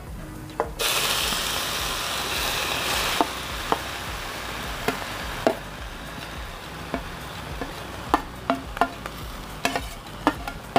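Grated potato dropped into hot oil in a kadai, setting off a loud sizzle about a second in that eases to a steadier, softer sizzle after a couple of seconds. A steel spoon scrapes and taps against the steel bowl a dozen or so times as the last shreds are knocked into the pan.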